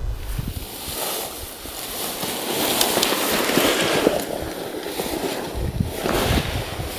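Wind buffeting the microphone: a rushing noise with gusts, and a low rumble that strengthens about five and a half seconds in.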